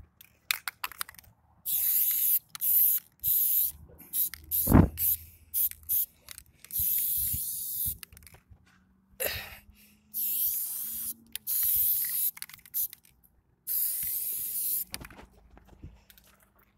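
Aerosol spray-paint can hissing in a quick series of short bursts, some about a second long, as a graffiti tag is sprayed onto concrete. One sharp knock comes a little under five seconds in.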